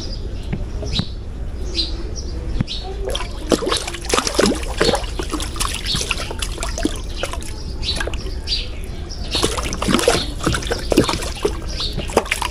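A hooked catfish thrashing and splashing at the water's surface on a hand line, in two bouts of splashing, one a few seconds in and one near the end.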